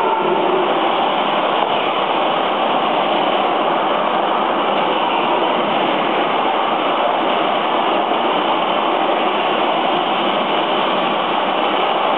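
Radio-controlled model landing craft and tanks running: a steady, even mechanical noise with no breaks.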